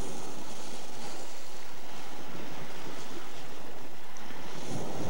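Steady rush of wind and sea water past a 61-foot Sparkman & Stephens racing yacht sailing hard in over 20 knots of wind.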